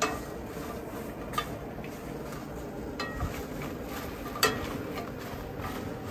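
Cookware being handled: a few sharp clinks and knocks of pots and utensils, about four in all, spread a second or so apart, over a steady low background.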